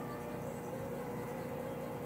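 Steady low background hum with a faint steady tone running through it, and no distinct events.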